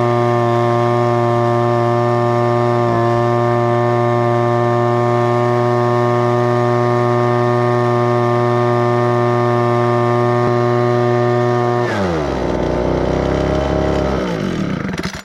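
Small two-stroke engine of a Homelite gas leaf blower running steadily at high speed, then about twelve seconds in dropping to a lower, unsteady speed that wavers up and down before stopping suddenly.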